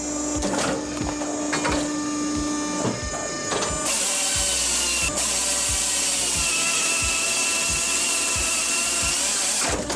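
Firewood processor working: clanks and knocks over a steady hum, then about four seconds in a loud, steady cutting noise with a high whine sets in and stops shortly before the end.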